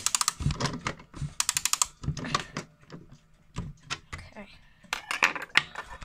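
Quick runs of rapid clicking from a chime mantel clock being handled as its hands are set, with some muttered speech.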